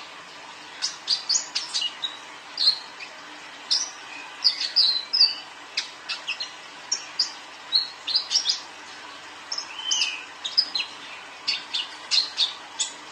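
A young male brown-throated sunbird (kolibri ninja), kept in a cage, singing a fast, high-pitched twittering song of short chirps and quick up- and down-sweeping notes in rapid clusters.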